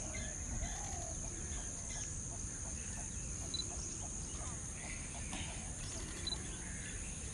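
Steady high-pitched insect drone, with scattered short animal calls over it.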